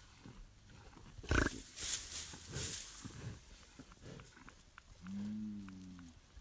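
Several short rustling bursts in the first half, then a cow gives one low moo about five seconds in, dipping slightly in pitch.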